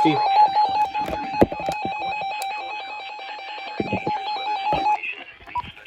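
NOAA Weather Radio warning alarm tone, one steady beep heard through a weather radio receiver, sounding for a weekly test of the alarm. It cuts off about five seconds in, leaving faint radio hiss.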